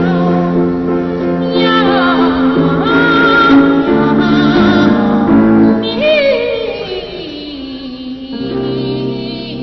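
Boy trebles singing a comic cat duet, their voices sliding and wavering in imitation of meowing, over grand piano accompaniment. About six seconds in, one voice makes a long falling slide.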